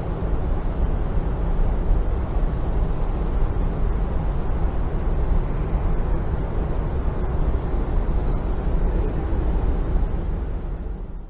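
Steady low rumbling background noise of a large exhibition hall, with no distinct events; it dips out sharply right at the end.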